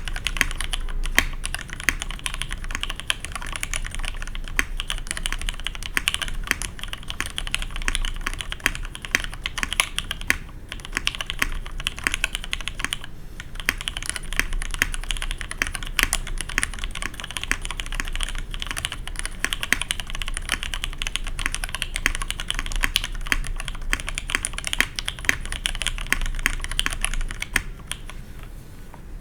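Custom mechanical keyboard (Matrix 2.0 Add, aluminium plate) with lubed vintage Cherry MX Black linear switches and SAU-profile keycaps, typed on continuously in rapid keystrokes. The typing pauses briefly twice and stops shortly before the end.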